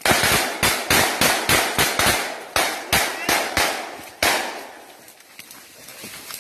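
Gunfire: a rapid, irregular series of about a dozen close shots, roughly three a second, each ringing out briefly. The shots stop about four seconds in.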